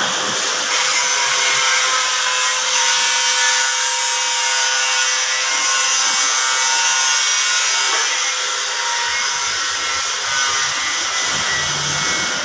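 A power tool runs steadily with a high-pitched hiss and whine, likely driving in the transmission casing bolts.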